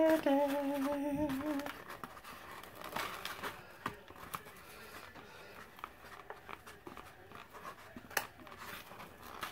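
A woman humming a couple of held notes for about the first two seconds, then soft scraping and light taps of a spatula against a bowl as butter, parsley and garlic are stirred and scraped down.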